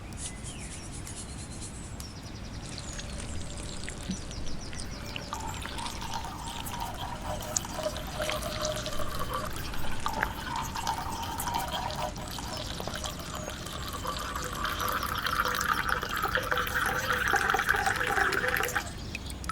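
Liquid pouring into a vessel, its pitch rising as the vessel fills. It builds from about five seconds in and stops suddenly near the end.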